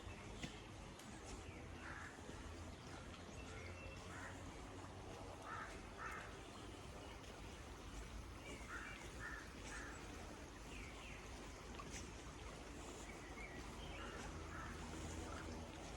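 Birds calling at a distance, short calls often in twos and threes, crow-like caws among them, over a steady low rumble of outdoor ambience.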